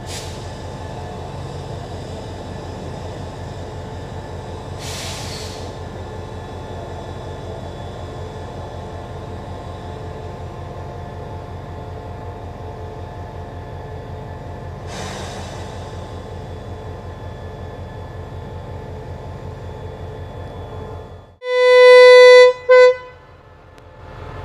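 SRT QSY-class diesel-electric locomotive's engine idling steadily, with a few short hissing bursts. Near the end the locomotive's horn sounds loudly, one long blast then a short one, as the train sets off on departure.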